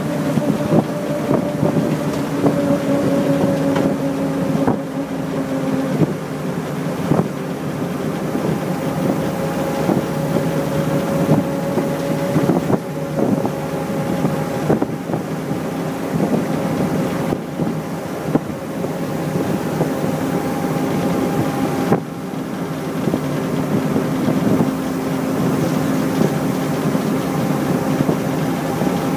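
1928 Graham Brothers screenside delivery truck driving, heard from inside its open cab: the engine and drivetrain run with a steady hum, with wind noise and occasional light knocks and rattles. The hum's pitch sags a little in the first few seconds and comes back strongly near the end.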